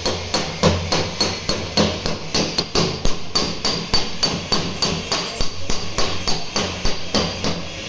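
Hammer beating out a dent in a car's sheet-steel door panel: steady, rapid metal-on-metal blows, about three to four a second, each with a short ring.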